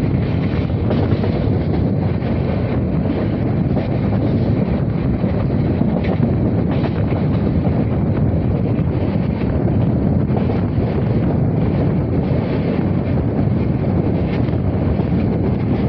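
Passenger train running at speed, recorded from on board: a steady rumble of wheels on the rails with wind buffeting the microphone.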